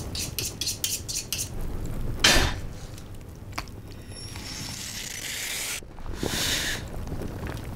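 Chef's knife being honed on a sharpening steel: a quick run of about six sharp metallic strokes, then one louder, longer swipe a little after two seconds. Softer hissing swishes follow later.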